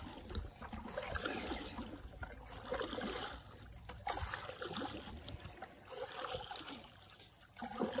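Water trickling and splashing lightly as a wooden paddle is pulled through river water in slow strokes, with a short lull near the end.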